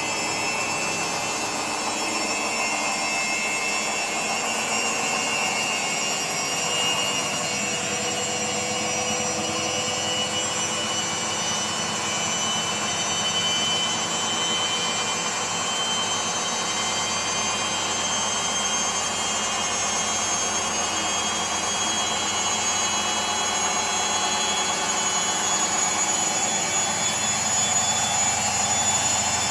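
Candy CS4 1061D1/2-07 washing machine on its spin cycle, the drum turning on freshly replaced bearings. It is a steady running sound with a motor whine that climbs slowly as the drum gathers speed, growing a little louder near the end.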